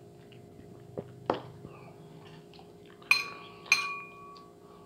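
A plate clinking against something hard: a couple of light knocks, then two sharp clinks about half a second apart, each with a brief ringing tone.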